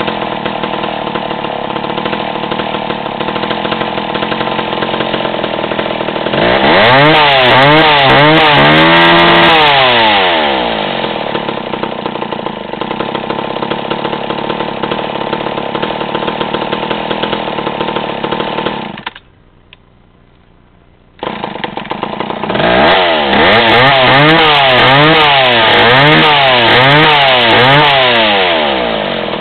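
McCulloch Mac 10-10 Automatic two-stroke chainsaw, very loud, idling and then revved hard, the engine note swinging up and down about twice a second. It settles back to idle, the sound cuts out for about two seconds near the middle, then the saw comes back and revs up and down again.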